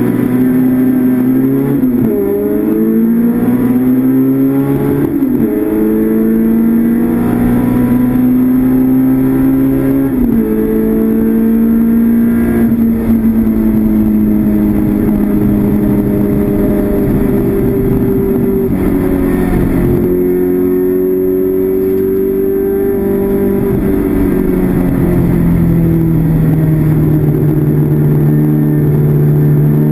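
Classic Mini's four-cylinder BMC A-series race engine, heard from inside the cabin at full throttle. Its note climbs and drops sharply three times in the first ten seconds as it is shifted up through the gears. It then falls away with further drops as the car eases off for the corners.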